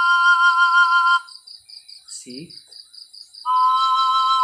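Bamboo harmonic pan flute, two pipes blown together to sound a held two-note F chord that stops about a second in, then a two-note C chord held from about three and a half seconds. Crickets chirp steadily underneath at about three pulses a second.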